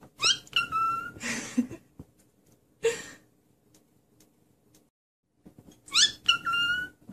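Cockatiel calling twice, about five seconds apart: each call is a quick run of rising whistled chirps ending in a steady held whistle. Short bursts of rustling noise follow the first call.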